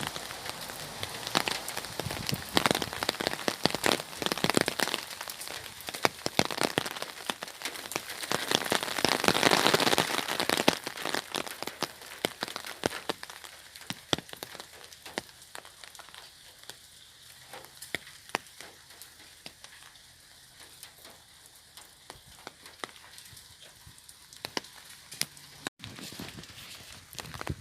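Rain falling on an umbrella: a dense stream of drop strikes that is heaviest about ten seconds in, then eases to sparser, scattered drops.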